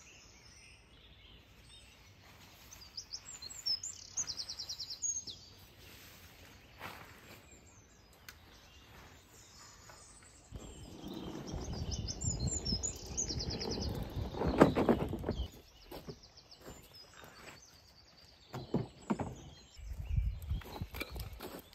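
Small birds twittering in short phrases of song, with the rustling, knocks and clatter of camping gear being packed and handled; the loudest clatter comes about two-thirds of the way through.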